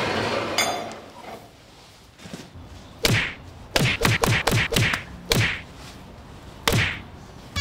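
Metal scraping with a short ringing clank as a small anvil is moved into place. From about three seconds in, hammer blows on a cold chisel trimming excess wrought iron from a spoon blank: about nine sharp strikes at an uneven pace, several in quick succession.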